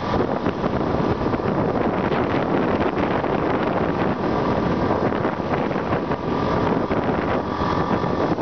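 Wind rushing over the microphone on a moving motorcycle, mixed with the motorcycle's engine and road noise, steady throughout.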